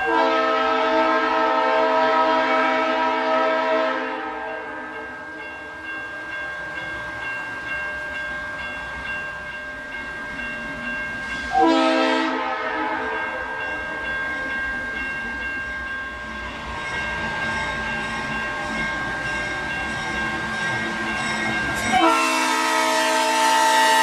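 Locomotive horn sounding a chord in three long blasts: the first fades back after about four seconds, a second starts a little before halfway, and a third near the end.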